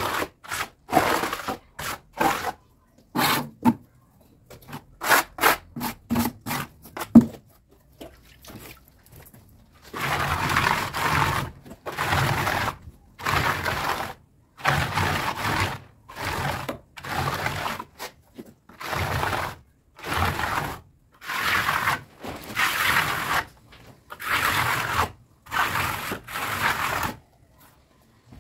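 Tool scraping through cement mortar mixed with fine gravel. At first there are short, irregular scrapes and knocks; from about ten seconds in comes a regular run of longer scraping strokes, roughly one every second and a half.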